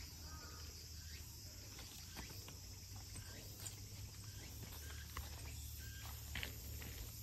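Faint steady high-pitched chorus of crickets or similar insects, with a few scattered short clicks and chirps.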